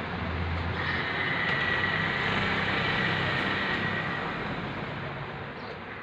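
Table fan's electric motor running with no blade fitted, its freshly replaced bearings spinning the bare shaft, giving a steady hum with a thin high whine. About halfway through the sound begins to fade away steadily, as the motor winds down.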